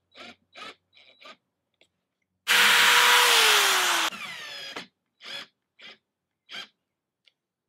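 An electric drill runs under load for about a second and a half, driving or drilling into the wooden vent frame. Its pitch drops as it bites, then it winds down. A few short bursts of sound come before and after the run.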